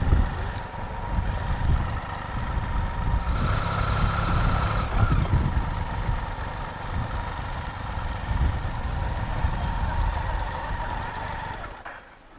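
Motorcycle running through city traffic: a steady low engine and road rumble with a faint steady high tone over it, fading away just before the end.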